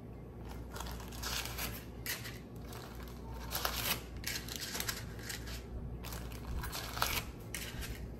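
Paper cupcake liners rustling in short, irregular bursts as they are peeled apart from a stack and set into a muffin tin.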